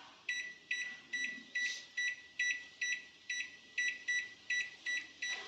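LG convection microwave's control panel beeping once per button press, a quick run of about a dozen short, even beeps, roughly two or three a second. Each beep marks one step through the auto-cook recipe codes toward code RD19.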